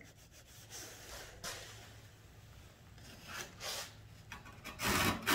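Soft handling and rubbing of a hand-held wooden gypsum board planer against the board, then near the end the planer's blade starts scraping along the gypsum board's edge in a loud, even rasp, shaving it down on the thick-cut side.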